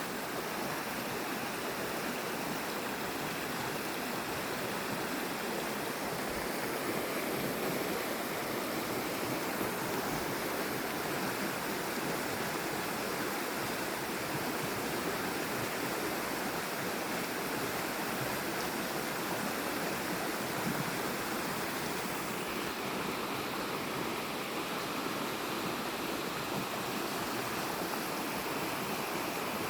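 Steady rush of falling water from a waterfall, an even, unbroken sound.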